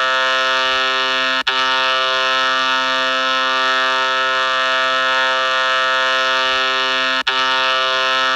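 A single loud, steady horn-like tone held at one unchanging pitch, rich in overtones. It breaks off for an instant twice, about a second and a half in and again near the end.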